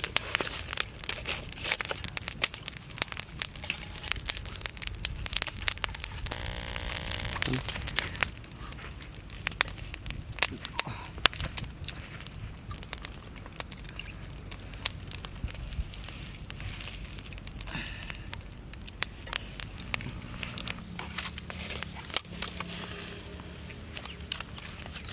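Open charcoal fire crackling and popping, with embers being stirred with a stick; the crackles come thick and fast for the first eight seconds or so, then thin out to scattered pops.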